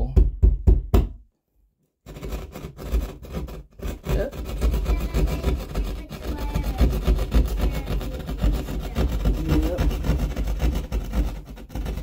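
Hand drywall jab saw cutting through drywall in rapid back-and-forth strokes, broken by a short dead silence about a second in.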